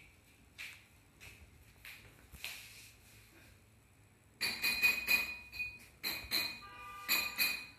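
A few faint ticks, then about four seconds in, loud crackling and rustling in several bursts from the clear plastic wrap around a cardboard package being handled.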